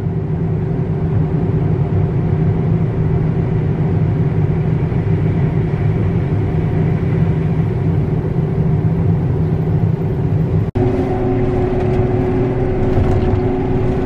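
Steady drone of a John Deere combine's engine and threshing machinery heard from inside its cab. After a brief break near the end, the drone carries a steadier, higher hum.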